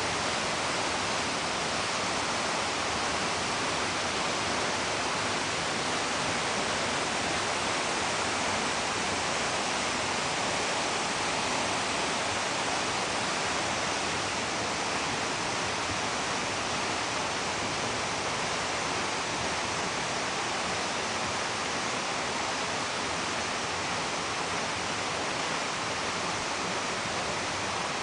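Waterfall: falling water rushing in a steady, even hiss.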